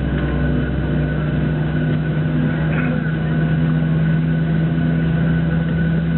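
Steady drone inside a Boeing 737-700's cabin during pushback: a constant low hum with a few held tones, one fainter high whine among them, and a faint rattle about three seconds in.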